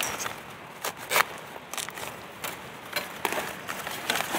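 Dry leaves, twigs and bamboo litter crackling and snapping as they are pushed through and broken, with a handful of irregular sharp cracks, the loudest a little over a second in.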